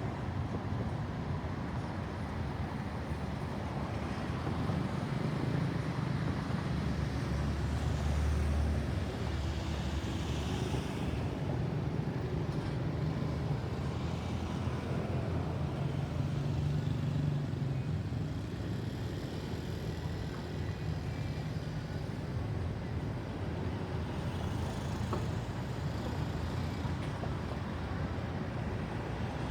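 Road traffic: motor vehicles passing with a steady low engine and tyre rumble, one pass louder about eight to eleven seconds in. No siren is heard.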